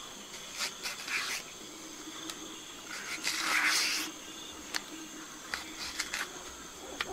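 Hand preparation of dọc mùng (giant taro) stalks being peeled and trimmed: scattered light clicks and snaps, with one longer rustling scrape about three seconds in.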